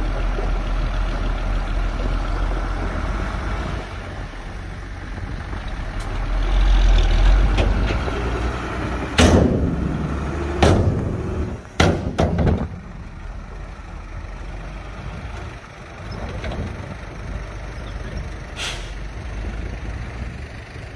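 Dump truck's diesel engine running, with a louder surge of engine effort partway through. Several short, sharp bursts of air hiss come between about nine and twelve seconds in, and one more comes near the end.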